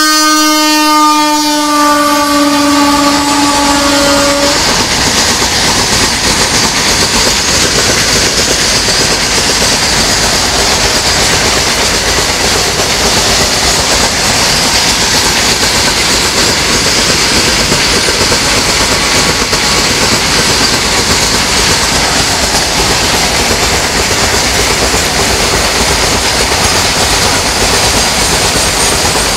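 Train horn sounding one long blast of about four seconds, then a freight train passing close by with a steady loud rumble and wheel clatter.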